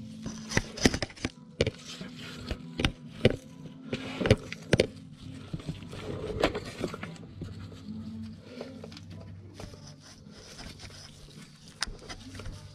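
Irregular sharp clicks, knocks and scraping of hand tools and engine parts being handled, loudest in the first two seconds and again around four seconds in, over a faint steady low hum.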